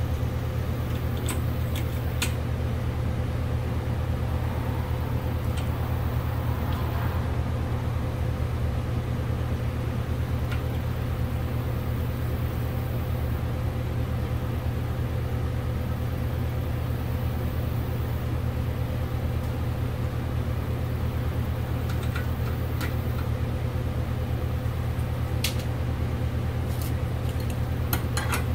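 A steady low mechanical hum, over which a few light metallic clicks and ticks come from a brake-line flaring tool being turned down in a bench vise, about a second or two in and again in the last several seconds.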